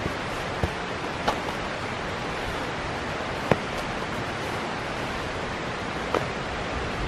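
Steady outdoor wind noise, with a few light taps and one sharper knock about three and a half seconds in as camping gear, including a stuffed sleeping bag, is handled on a plastic tarp.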